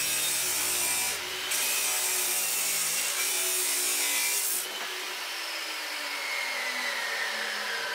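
Abrasive chop saw cutting through square metal tubing: a loud, harsh grinding hiss with a brief dip about a second in. About four and a half seconds in the cut ends and the saw's motor winds down with a slowly falling whine.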